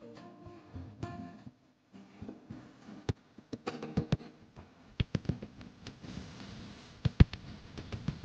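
Background music with pitched plucked notes, and sharp percussive hits at irregular intervals, the loudest about seven seconds in.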